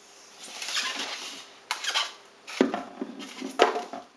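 Styrofoam packing rubbing and scraping as a plastic digital readout console is pulled out of its box, then a few sharp knocks as the unit is handled and set down.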